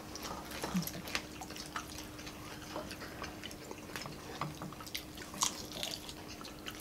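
Quiet eating sounds: scattered small wet clicks and smacks of chewing, and wooden spoons scooping saucy stew, over a faint steady hum.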